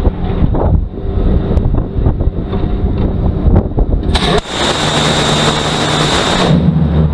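Phalanx CIWS 20 mm six-barrel Gatling gun firing one continuous burst of about two and a half seconds, starting about four seconds in and cutting off suddenly. It sounds as a dense buzzing roar with a steady whine. Before the burst, rough gusty wind noise on the microphone with scattered knocks.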